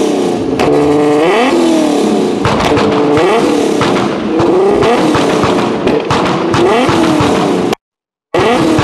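Infiniti G-series sedan's V6 being revved over and over through its exhaust, the pitch climbing and falling back in quick blips about once a second. The sound cuts out for a moment near the end.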